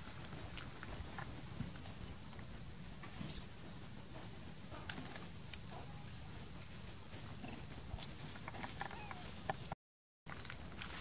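Insects trilling in a steady high-pitched drone, with a few faint scuffs and clicks and a short rustle about three seconds in. The sound drops out for an instant near the end.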